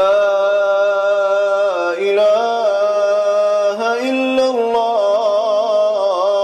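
Male Iraqi Quran reciter drawing out one long melodic syllable in a single breath. The pitch steps up and down a few times and wavers in quick ornaments near the end.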